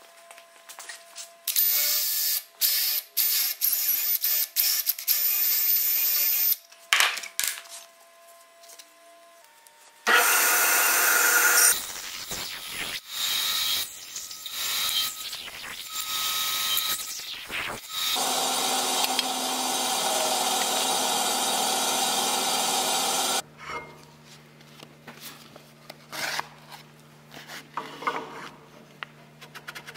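A run of workshop sounds: first a series of sharp rasping strokes, then a bandsaw cutting a hardwood block, in bursts and then steadily for about five seconds. The saw cuts off abruptly near the end, leaving a steady low hum under light scraping and tapping of wood on steel.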